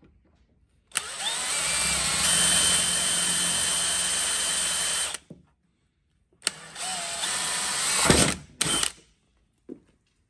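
Cordless DeWalt XRP drill with a 5mm bit drilling through a vehicle's body side panel, in two runs: a steady whine of about four seconds, then a shorter run of about two and a half seconds ending with a couple of sharp knocks.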